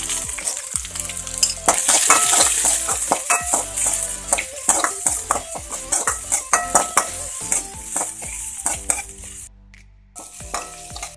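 Chopped shallots and green chillies sizzling in hot oil in a kadai, with a spatula scraping and clicking against the pan as they are stirred. The sizzle drops away about nine and a half seconds in.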